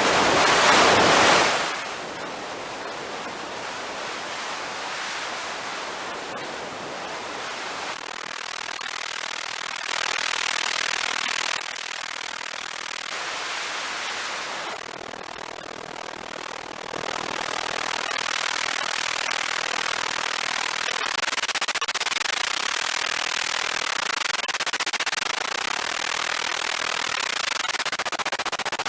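Synthesized filtered noise, a steady hiss with no clear pitch, loudest in the first couple of seconds, louder again for a stretch about ten seconds in, and rising once more at about seventeen seconds: a noise-based engine sound effect being played in Ableton Live.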